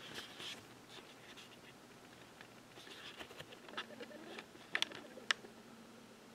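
Faint mouth and breath noises with soft rustling right at the microphone, and a few small sharp clicks about five seconds in, with quiet stretches between.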